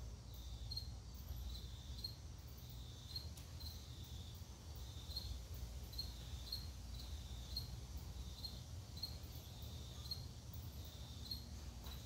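A 1985 Hunter Original ceiling fan, with an oil-bath motor, runs with a steady low hum. Faint, short high chirps come and go at uneven intervals.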